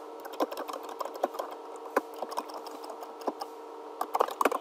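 Computer keyboard keys clicking in irregular keystrokes, with a quick run of keystrokes near the end, over a steady background hum.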